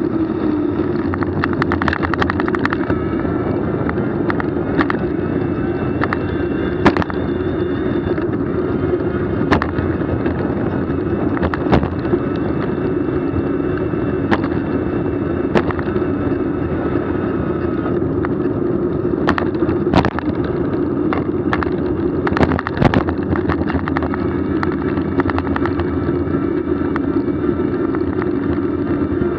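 Steady wind and rolling noise of a bicycle ride, dotted with many short, sharp clicks and knocks.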